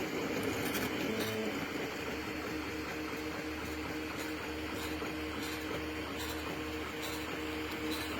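3D printer running, its stepper motors giving a steady whine with two held tones over a low hum.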